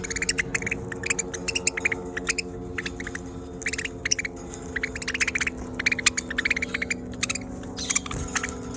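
Budgerigars chattering in quick runs of high chirps, coming in clusters every second or so, over a steady low hum.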